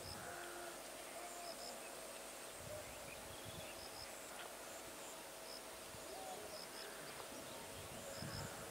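Faint countryside ambience: a small creature repeats a short, high double chirp about every second and a half over a soft steady hiss, with a few fainter calls now and then.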